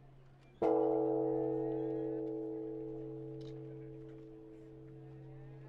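A metal bell struck once a little over half a second in, ringing with several clear overlapping tones that fade slowly.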